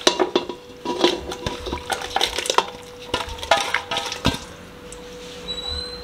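A spoon clinking and scraping against metal pots and bowls as the masala-coated mutton pieces are tipped into a pressure cooker: a quick, irregular run of clinks and scrapes with brief metallic ringing, dying down after about four seconds.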